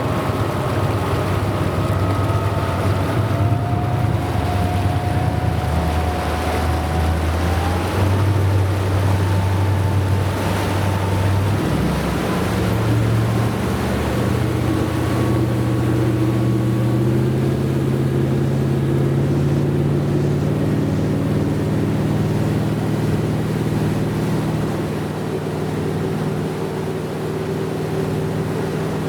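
Motorboat engine running at speed, with water and wind rushing past. Its pitch steps up about twelve seconds in and then slowly climbs.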